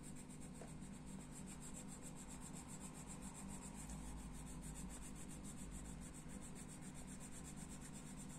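Coloured pencil rubbing steadily on the paper of a colouring book as an area is shaded in, faint and continuous.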